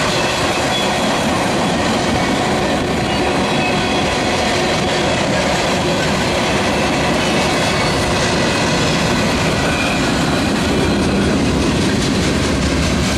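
Freight train tank cars and covered hoppers rolling past close by: a loud, steady rumble and clatter of steel wheels on rail, with faint thin wheel-squeal tones above it.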